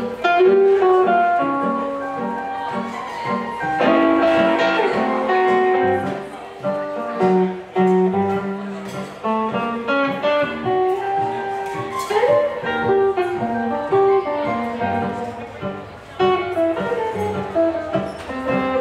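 Live blues duo playing an instrumental passage without singing: a hollow-body electric guitar plays single-note lines over electric keyboard, with one note bent upward about twelve seconds in.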